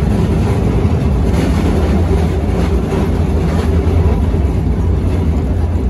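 1896 Hammond open streetcar rolling along its track, heard from aboard: a loud, steady rumble of steel wheels on rail and running gear, with a few faint clicks in the middle.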